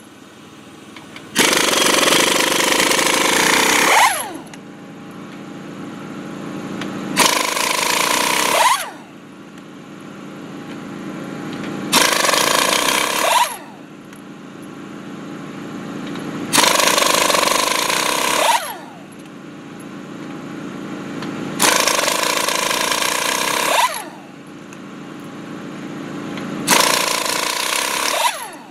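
Pneumatic impact wrench on a truck wheel's lug nuts: six bursts of hammering rattle, each lasting one to three seconds and ending in a falling whine as the tool winds down, with short pauses between them.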